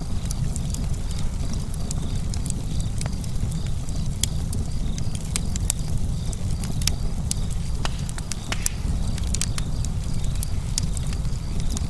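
Burning wood crackling, with frequent sharp irregular pops over a steady low rumble.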